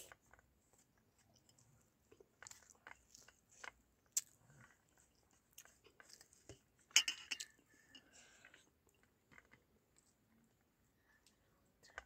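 A child eating rice by hand: faint, irregular chewing sounds and fingers pressing and scraping the rice across a metal plate, with a louder cluster of clicks about seven seconds in.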